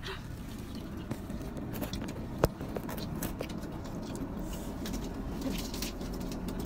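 Steady low rumble of a van's cabin, with scattered light rustles and clicks of food packaging being handled and one sharp click about two and a half seconds in.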